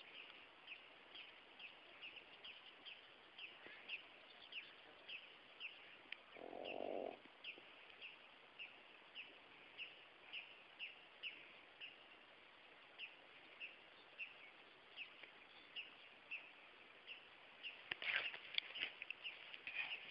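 A small bird calling faintly and steadily, short high falling chirps about two a second. About six and a half seconds in there is a brief low rasp, and some scuffing near the end.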